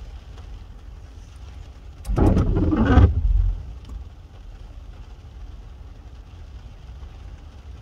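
Iveco garbage truck's engine revving for about a second and a half, starting about two seconds in, as its hydraulic arm lifts and tips a wheelie bin. A steady low rumble lies underneath.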